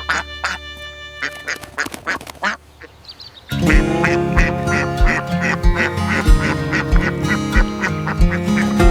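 Background music: light plucked notes, then about three and a half seconds in a fuller arrangement comes in with a steady beat.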